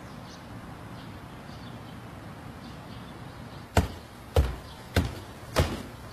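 Quiet room tone, then from about four seconds in a run of sharp knocks at a steady pace of about one every 0.6 seconds.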